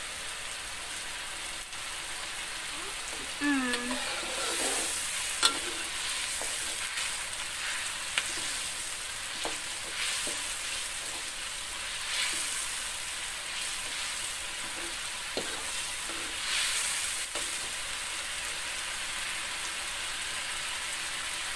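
Spice paste sizzling as it fries in oil in a metal wok, with a metal spatula scraping through it and tapping against the pan now and then.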